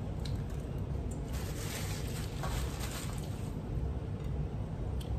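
Paper sandwich wrapper crinkling as it is crumpled and set aside, with a few small clicks, over a steady low hum.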